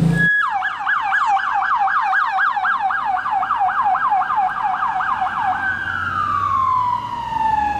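Ambulance siren in a fast yelp, about five rising-and-falling sweeps a second, switching near the end to one long falling tone.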